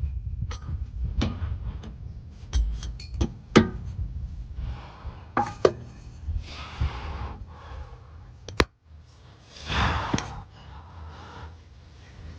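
Metal tools and hardware clinking and knocking during rear shock absorber work: irregular sharp knocks and clicks of a wrench against nuts, bolts and washers, with a couple of brief scraping sounds.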